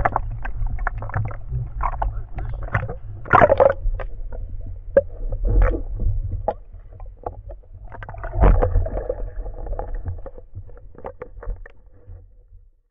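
Underwater audio during a spearfishing dive: a steady low rumble with many scattered sharp clicks and crackles, and a few louder bubbling surges about three and a half, five and a half and eight and a half seconds in.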